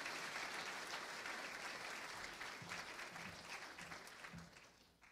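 Congregation applauding, the clapping thinning out and dying away near the end.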